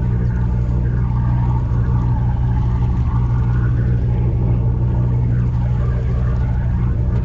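Boat's engine running steadily, a constant low drone with no revving.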